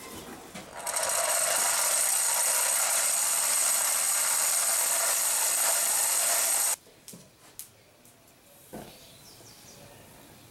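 Small electric blower forcing air into a charcoal forge: a steady rush of air with a thin high whine that starts about a second in and cuts off suddenly about six seconds later, followed by a few faint clicks.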